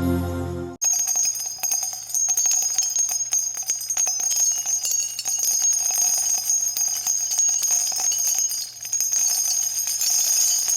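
Background music: a soft ambient track cuts off under a second in and gives way to a busy passage of jingling bells and high chimes.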